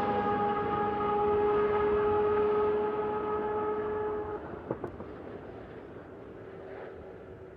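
Mazda 787B's four-rotor rotary engine running at steady high revs with a sustained, horn-like note. The note fades away a little over four seconds in as the car draws off.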